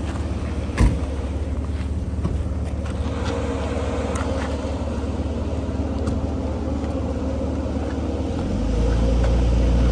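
Truck engines idling steadily, with a single knock about a second in. Near the end an engine picks up and runs louder, under load, as the Jeep starts to pull the pickup stuck in the mud.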